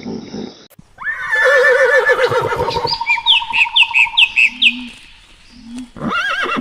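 Animal calls in quick succession: a loud quavering call from about a second in, then a rapid run of about five falling, squawk-like chirps, then a new call near the end.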